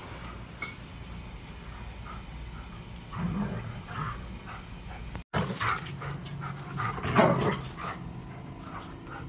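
Two German shepherds play-fighting, making short dog vocalisations in scattered bursts, loudest about seven seconds in.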